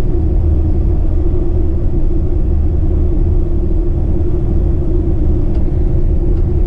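Tour coach's engine and road noise heard from inside the cabin while driving: a steady, low drone with a constant hum.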